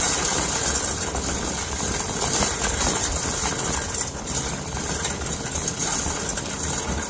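Shopping cart rolling across a hard store floor: a steady rattling rumble from its wheels, close to the microphone.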